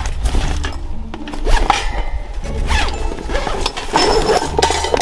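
Background music with a steady low bass line, over repeated clinks and clatters of gear being handled.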